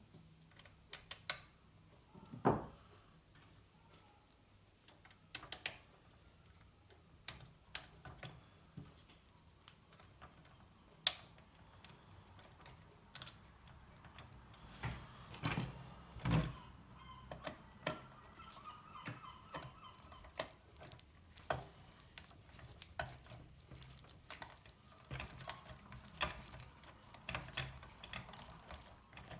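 Small parts and hand tools being handled while reassembling an RC truck's front suspension: irregular light clicks and taps of plastic and metal, with a few louder knocks about two and a half seconds in and again around the middle.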